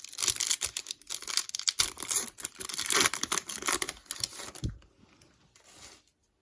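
Foil wrapper of a Topps Chrome Hobby baseball card pack being torn open and crinkled by hand, a dense crackling that stops about two-thirds of the way through.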